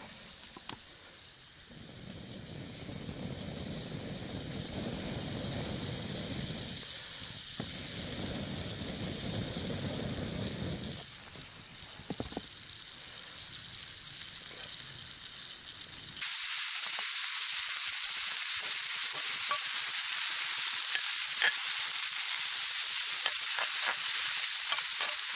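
Butter sizzling in a skillet over a wood campfire. About sixteen seconds in, the sizzle suddenly becomes much louder and hissier as mushrooms and shallot fry in the butter.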